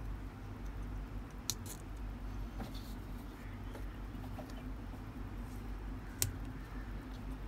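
A few small sharp clicks and taps from fingers handling and pressing the rubber vent caps on top of a sealed lead-acid battery, the sharpest about six seconds in, over a steady low hum.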